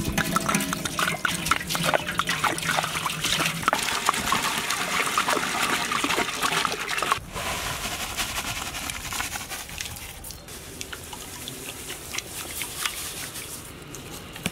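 Water pouring from a jug into a large aluminium cooking pot that already holds water, a steady splashing gush. About seven seconds in the pour stops and softer splashing follows as whole spices are tipped into the water.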